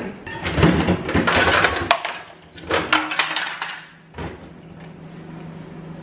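Crinkling and rustling of food packaging being handled, in two bursts full of sharp crackles. A faint steady low hum follows.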